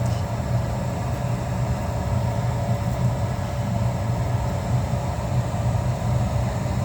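The draft inducer motor of a 90% gas furnace running steadily, with a low hum, while the hot-surface igniter is on during the start-up sequence on a call for heat.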